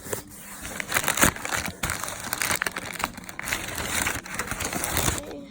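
Packaging being handled and unwrapped: crinkling and rustling with many small crackles, stopping just before the end.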